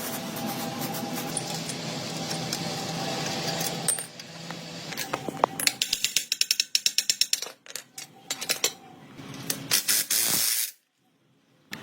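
Metal workshop sounds: a steady machine hum, then scattered knocks and a rapid run of metallic clicks, about a dozen a second, that stops after a second or so.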